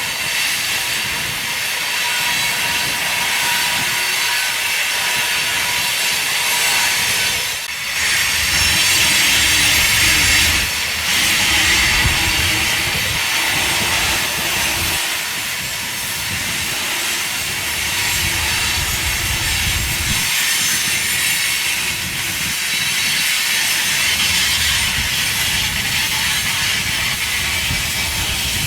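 Union Pacific mixed freight train's cars rolling past on the rails, a steady rumble and hiss of wheels on track with small swells in loudness. Strong wind buffets the microphone.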